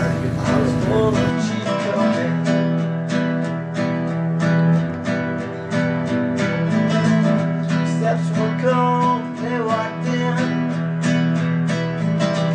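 Background music: a strummed acoustic guitar playing a steady rhythm. A low rumble from the live sound underneath stops a little over a second in, leaving only the music.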